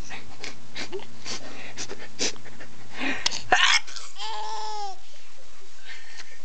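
A few short breathy bursts of laughter, then a loud mock sneeze about three and a half seconds in. A young child answers it with one high squeal of laughter that rises and falls.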